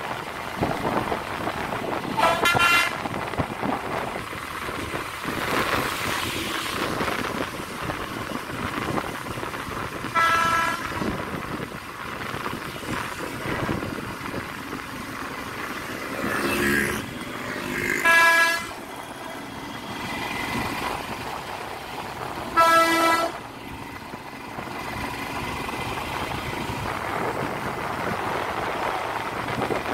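Vehicle horn honking in four short, high blasts spread through, with one lower-pitched honk just before the third, over the steady wind and road noise of a motorcycle riding on a wet road.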